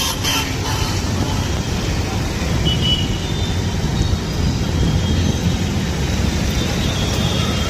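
Steady low rumble of vehicles on the move, with a faint brief high squeal about three seconds in.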